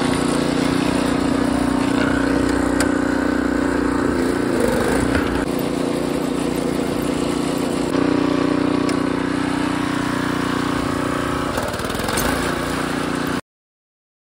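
Harbor Freight Predator 212 single-cylinder engine on a 1989 Wheel Horse garden tractor, running steadily as the tractor is driven. Its pitch wavers about four to five seconds in and again near the end, then the sound cuts off suddenly.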